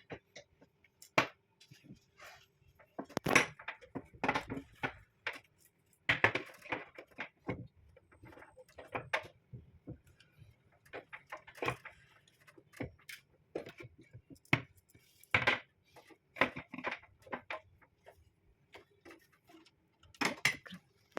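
Irregular knocks, clicks and clatters of hard objects being handled and set down, some of them sharp and loud, over a faint steady hum.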